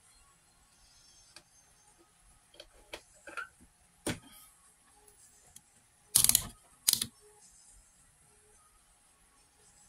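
Irregular clicks and knocks of parts and tools being handled. The loudest is a short rattle about six seconds in, followed by a sharp click.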